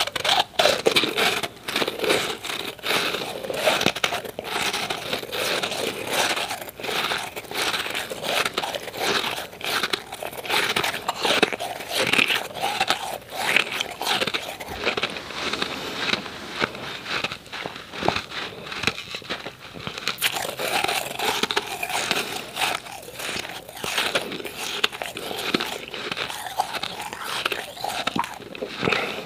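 Powdery, refrozen ice cubes being chewed close to the microphone: a dense run of crisp crunches and crackles, several a second.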